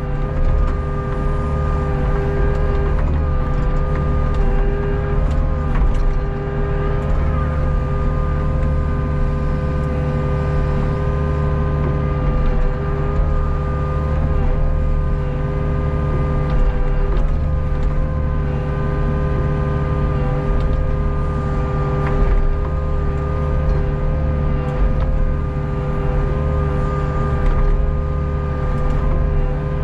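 Hitachi ZX48U mini excavator's diesel engine running steadily under working load, heard from the operator's seat, with several steady whining tones over its low rumble.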